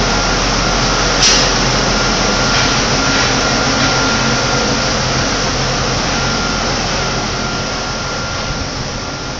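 Tissue paper making machinery running steadily: a constant mechanical noise with a steady hum and a thin high whine, and a short hiss about a second in.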